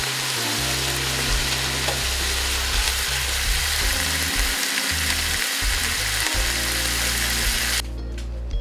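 Chopped vegetables and browned oxtails sizzling in olive oil in a large stock pot: a steady frying hiss that stops abruptly near the end.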